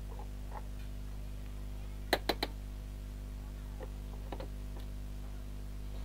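A screwdriver working screws out of a CRT television's plastic back cover: a quick run of three sharp clicks about two seconds in, then a few fainter clicks and taps, over a steady low hum.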